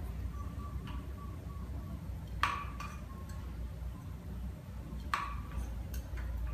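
A kitchen utensil clinks sharply against a dish or pot twice, about two and a half seconds apart, each strike ringing briefly, over a steady low rumble.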